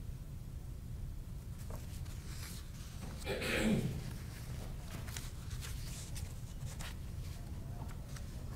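Indoor room tone with a steady low hum, faint clicks and light shuffling, and one brief louder rustling noise about three and a half seconds in.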